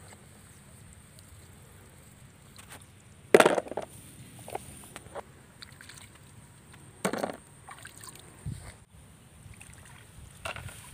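A hand splashing in shallow ditch water while picking field snails: two louder splashes about four seconds apart, with a few smaller splashes and taps between.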